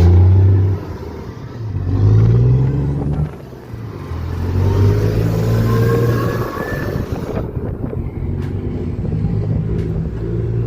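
Scania 500 truck engine running loud through a burst exhaust silencer, its low note swelling and dropping about four times. A faint rising whine sits in the middle.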